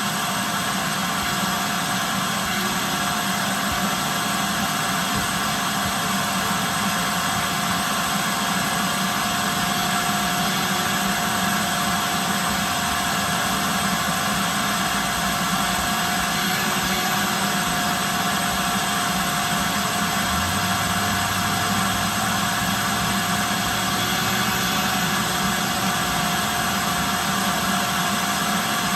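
Shop vacuum running steadily: a continuous rushing noise with a constant motor whine.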